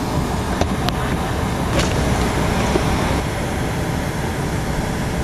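Steady cabin air and ventilation noise inside a parked Boeing 747 airliner, with a few light clicks in the first two seconds.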